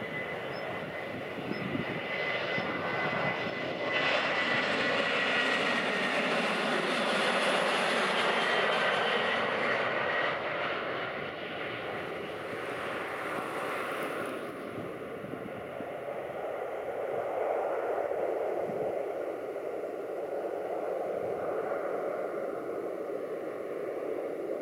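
Boeing 737-800's CFM56-7B turbofan engines at takeoff thrust through the takeoff roll, liftoff and climb-out: a steady high fan whine over broad engine noise. It grows louder about four seconds in and is loudest as the jet passes. After about fourteen seconds the whine fades, leaving a duller engine noise as the aircraft climbs away.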